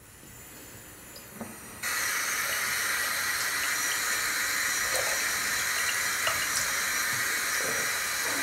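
Bathroom faucet turned on about two seconds in, then running steadily into a ceramic basin and over cupped hands.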